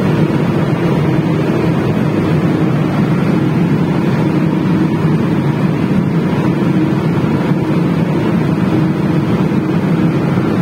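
Steady drone of an industrial belt dryer running, with its gas burner firing and its circulation fans turning, and a steady low hum underneath.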